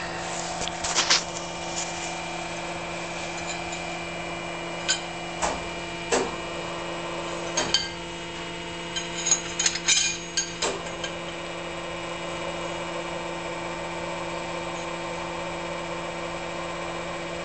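Metal clinks and knocks as a welded steel tube test piece is fitted by hand into the grips of a tensile testing machine, scattered through the first ten seconds or so, with a cluster near the middle. A steady machine hum runs underneath throughout.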